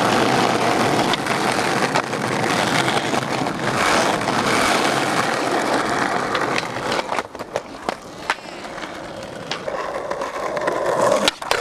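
Skateboard wheels rolling over rough tarmac, a steady rolling rumble. After about seven seconds it gives way to scattered clacks and knocks of the board, with a loud crack near the end.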